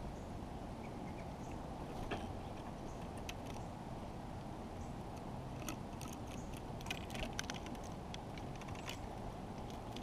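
Sharp, irregular clicks of an American goldfinch's bill picking at and cracking seeds in a wooden log feeder close to the microphone, with a quick cluster of them about seven seconds in. A steady low outdoor rush runs underneath.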